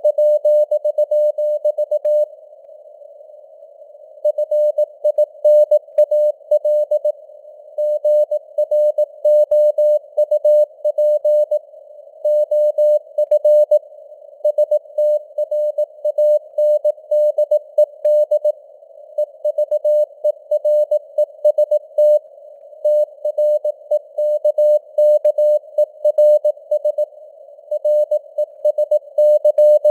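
Morse code (CW) sent at 18 words per minute as a keyed mid-pitched beep, in a narrow band of simulated radio hiss. The signal strength rises and falls slightly (QSB).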